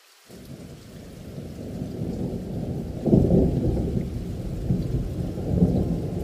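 Muffled rumble of thunder in a rainstorm. It starts suddenly, swells and peaks about three seconds in, then keeps rolling.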